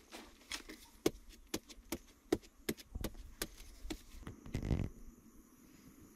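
A digging tool striking and scraping into dry earth, a quick series of short, sharp strokes at about two or three a second, with a brief rougher burst just before it stops near the end.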